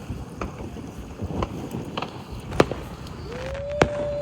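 Fireworks going off: scattered sharp pops, one every half second to a second or so. Near the end a single flat whistling tone is held for about a second and a half.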